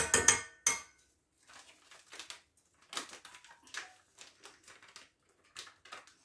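A tablespoon clinks and taps against a pot, knocking off a measured spoonful of pudding powder. A quick run of sharp knocks comes in the first second, followed by lighter scattered clicks and scrapes.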